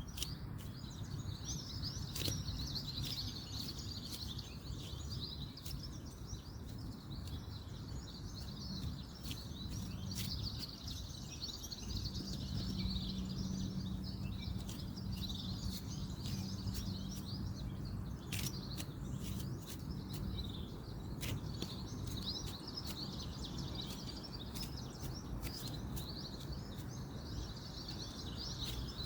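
Chorus of many small birds chirping and twittering without a break, over a steady low rumble of distant road traffic. Scattered sharp little clicks sound throughout, and a faint low hum rises in the middle and fades.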